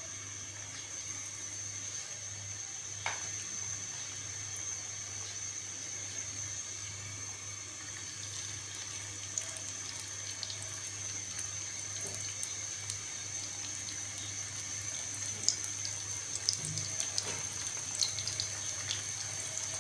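Vegetable oil sizzling in a non-stick frying pan as folded crepes shallow-fry: a steady hiss with scattered pops and crackles that grow more frequent near the end.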